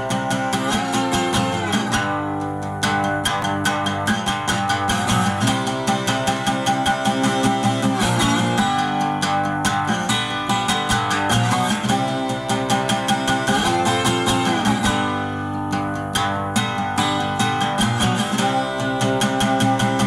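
Background music led by guitar, plucked and strummed at a steady level.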